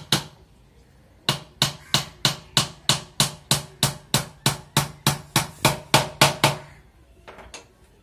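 Small hammer nailing together a wooden nest box: an even run of sharp strikes, about three a second for some five seconds, then two lighter taps near the end.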